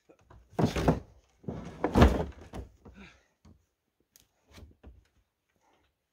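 Heavy dull thuds and bumps as a deer carcass is heaved against the back of a Polaris Ranger UTV's cargo bed. Two loud bumps come in the first three seconds, the louder around two seconds in, followed by a few softer knocks.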